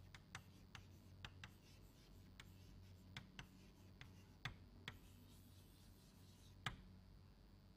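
Chalk on a blackboard while words are written and underlined: a scattered series of faint, sharp taps and scratches.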